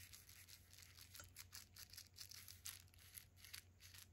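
Faint crinkling and rustling of packaging being handled and opened, a string of soft irregular crackles.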